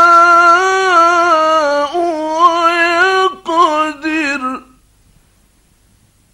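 A male Quran reciter chanting in the melodic tajweed style. He holds one long note that shifts up and down in small steps, then sings a shorter ornamented phrase falling in pitch on the word 'wa yaqdir'. His voice stops about four and a half seconds in, leaving only faint hiss.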